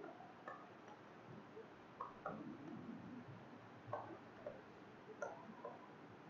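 Faint, scattered taps and knocks from a lecturer moving at a chalkboard and writing on it with chalk.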